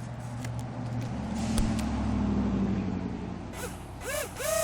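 A low steady rumble, then near the end short whines that rise, hold and fall as the RC plane's tiny electric nano motors are throttled up and back down, checked before launch.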